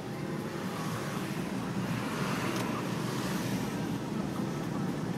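A car driving on an open road, heard from inside the cabin: a steady mix of engine and tyre noise, getting slightly louder in the first couple of seconds.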